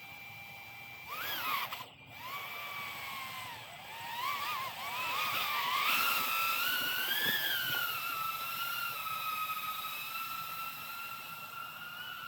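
A 3-inch cinewhoop quadcopter's EMAX 3000KV brushless motors: a steady whine at idle, then about a second in the pitch rises sharply as it throttles up and lifts off. The pitch wavers up and down as the throttle is worked, then settles into a steadier whine as it hovers.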